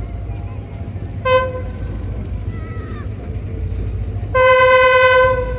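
Train horn sounding a short toot, then a longer, louder blast of about a second on one steady pitch, over a steady low rumble.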